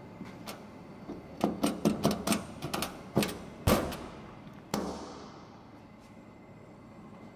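Heavy-duty rectangular multi-pin industrial connectors being pushed into their sockets on a metal cabinet panel and their metal locking levers clamped shut: a quick run of clicks and knocks, the loudest a little past the middle, then one more knock about a second later.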